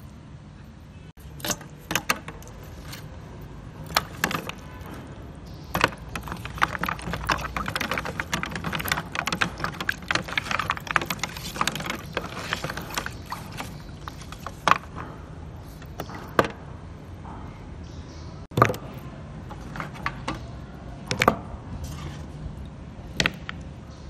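Large clam shells clacking and knocking against one another as they are handled. In the middle stretch, a dense run of clicking and water sloshing as the clams are scrubbed by hand in a basin of water.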